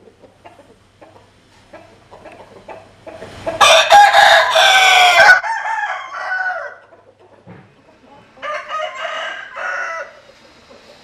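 Rooster crowing: one loud, long crow starting about three and a half seconds in that trails off at the end, with soft clucks before it and a shorter call later.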